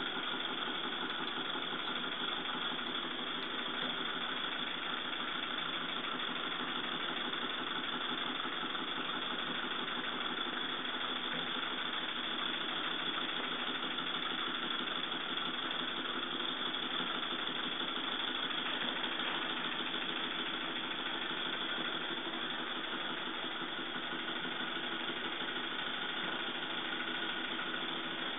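Cotswold Heritage Ariel model steam engine running steadily, driving a Stuart model oil field pump jack through a belt.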